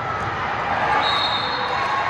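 Basketball bouncing on an indoor court over a steady din of voices echoing in a large gym, with a thin high squeak coming in about a second in.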